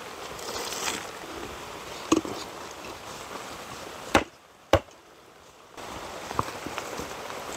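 Flat stone slabs for an ondol flue cover being handled and set down on stone and mud, giving a few sharp knocks, two of them close together about four seconds in, over a steady rushing background.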